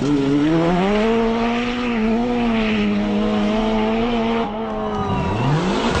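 Rally car engine at high revs. The pitch climbs over the first second and holds with small wobbles, then drops about four and a half seconds in and climbs steeply again near the end.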